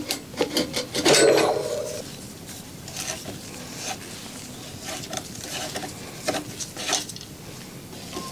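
Metal hand tool clinking and scraping in the crank-arm bolt of an e-bike's Bosch drive unit: a few sharp clicks, a louder scrape about a second in, then scattered knocks and clinks.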